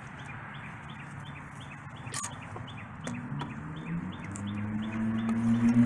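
Chicks peeping in a steady run of short high calls, about three a second. From about halfway a low hum slowly rises in pitch and grows louder.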